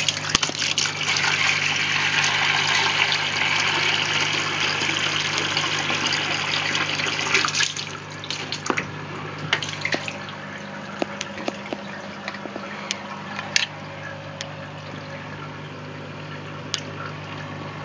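Municipal tap water running into a bowl, a steady rush that stops suddenly about seven and a half seconds in as the tap is shut. After it come scattered drips and small knocks, over a low steady hum.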